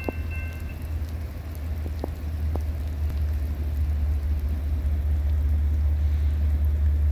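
Low rumble of an approaching train's diesel locomotives growing steadily louder, with rain. The pulsed electronic ringing of the grade-crossing bell stops about a second in.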